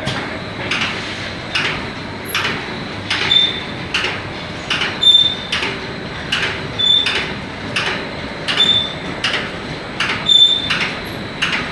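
Automatic shrink-wrap packing machine running: regular mechanical knocks about every three-quarters of a second, with a short high squeak repeating about every 1.7 seconds.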